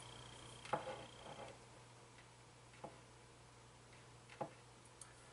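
Scissors snipping a slit into the end of a strip of rubber cut from a pinball rubber ring: three faint clicks of the blades closing.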